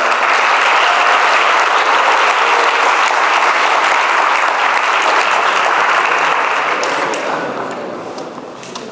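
Audience in a hall applauding, steady clapping that dies away near the end.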